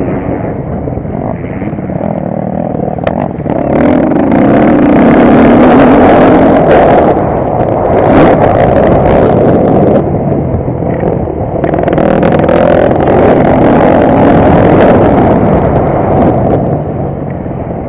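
Motocross bike engine running hard, its noise swelling and easing several times as the throttle is worked.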